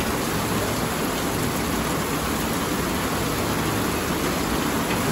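Heavy rain pouring down, a steady, even hiss with no let-up.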